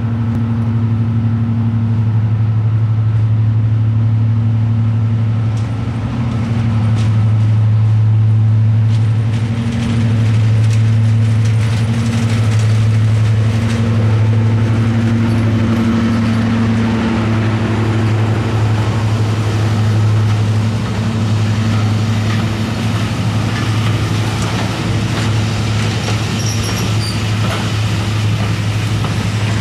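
Class 55 Deltic diesel locomotive passing at the head of a passenger train, its twin Napier Deltic two-stroke engines giving a loud, steady drone. Later the coaches roll by with clicks of the wheels on the rail.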